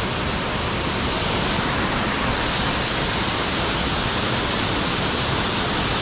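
A waterfall's steady rush of falling water, an even hiss with no breaks or changes.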